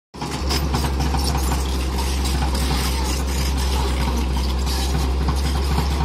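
Diesel engine of a Tata Hitachi EX 210 LC tracked excavator running steadily with a constant low drone while digging, with scattered clinks and rattles from the machine's bucket and linkage.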